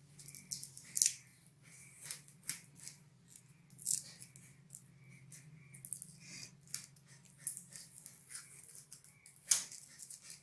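Tape being peeled off a freshly painted hatchet head: irregular crackling and rustling as it pulls away, with louder snaps about a second in, near four seconds and near the end, over a faint steady low hum.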